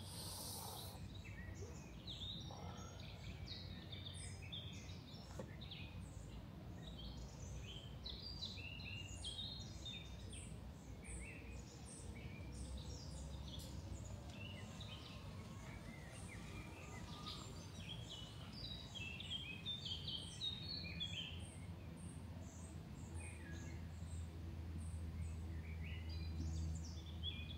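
Small birds chirping and calling, many short high notes scattered throughout, over a steady low outdoor rumble.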